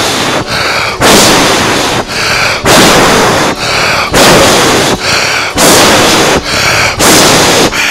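Loud, distorted blasts of noise through a church PA system, one about every second and a half, each stopping abruptly: forceful bursts into the microphone during a deliverance prayer.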